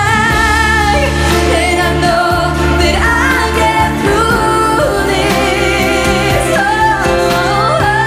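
Background music: a song with a sung melody, held notes wavering, over a steady low bass.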